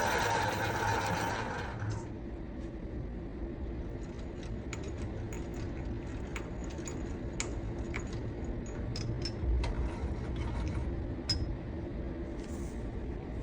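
A bench lathe's motor and gearing whirring, cutting off about two seconds in. A low steady hum follows, with scattered light metallic clicks and clinks.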